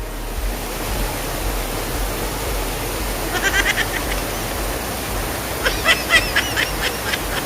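Stream water rushing steadily, with two short bursts of rapid high-pitched notes, one a little after three seconds in and a longer one near the end.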